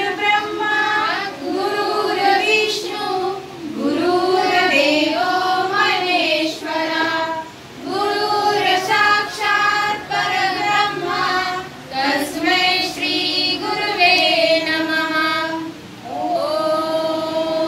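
Young children singing a song together in unison, in phrases of a few seconds with short pauses between them.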